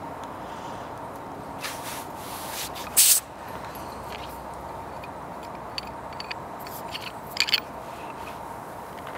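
Paintball markers being handled and swapped over: scattered small clicks and knocks with a few short hissing bursts, the loudest about three seconds in and another near the end.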